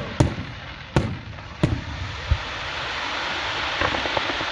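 Fireworks going off: four sharp bangs in the first two and a half seconds, then a steady hiss that builds and holds.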